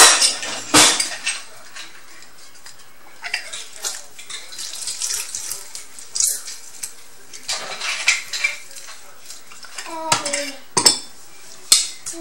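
A handheld citrus squeezer pressing lime halves over a small ceramic bowl: irregular clicks, taps and clinks of the squeezer and a spoon against the bowl, with a few louder knocks near the end.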